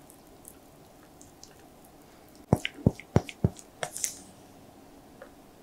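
Thick cake batter pouring from a glass bowl into a paper-lined stainless steel loaf tin. It is almost quiet at first. Halfway through comes a quick run of about half a dozen sharp wet taps and plops, about three a second, as the last of the batter drops from the bowl, ending in a short scrape.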